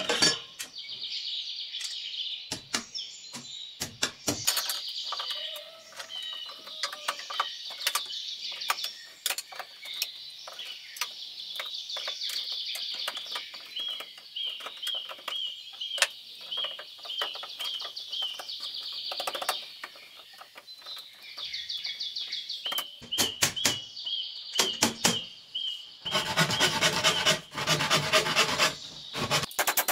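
Small birds chirping, with a short call repeated in runs, over scattered knocks and scraping from hand work on wood or bamboo. Near the end, a louder stretch of rapid knocking and scraping lasts about three seconds.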